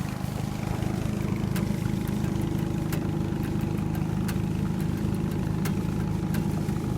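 A small engine running steadily at idle, an even hum that holds one pitch throughout, with scattered sharp clicks over it.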